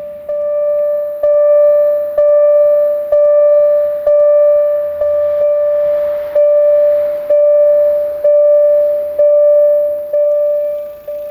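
Level-crossing warning bell ringing, struck about once a second, each strike ringing on as one clear note before the next. It warns that a train is approaching the crossing.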